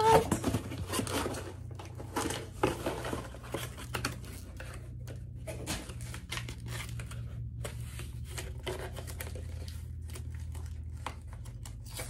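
Cardboard shipping box being handled and opened by hand: irregular rustling, crinkling and scraping of cardboard and paper packaging, with small clicks and taps throughout.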